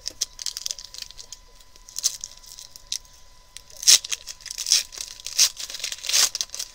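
Foil wrapper of a Panini Prizm basketball hobby pack being torn open and crinkled by hand: a run of crackling rips and rustles, loudest about four seconds in and again about six seconds in.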